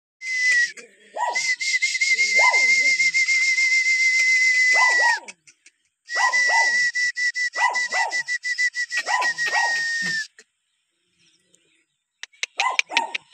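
Dog barking and yelping in short calls that fall in pitch, over a steady high whistle held for about five seconds, then for about four more after a short break. Near the end only a few quick yips remain.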